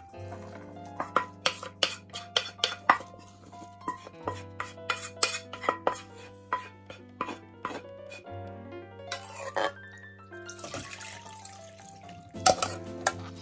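Background music over repeated knocks and scrapes of a wooden rice paddle against a rice cooker's inner pot as cooked rice is mixed and scooped out. Near the end, a metal saucepan and ladle clink against a mesh strainer as simmered vegetables are tipped in to drain.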